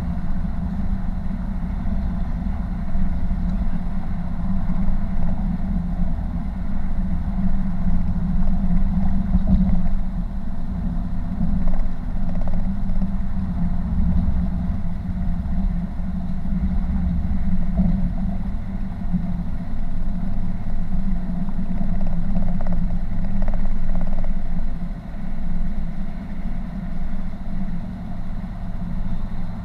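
Car driving on a freeway, heard from inside the cabin: steady road and engine noise with a low drone.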